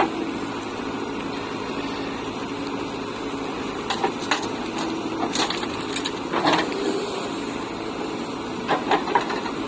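Diesel engine of heavy earthmoving machinery running steadily, with several sharp knocks about four to six and a half seconds in and a quick run of three near the end.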